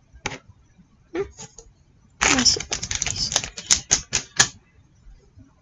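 Small plastic Lego pieces clicking and rattling as they are handled and shaken about. There are a few single clicks, then a dense burst of rattling from about two seconds in until a little before the end.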